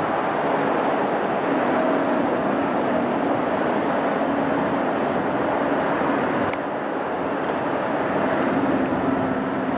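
Steady jet-engine roar of a landing Airbus A330-343 with Rolls-Royce Trent 700 engines, heard from a distance with a faint steady hum under it.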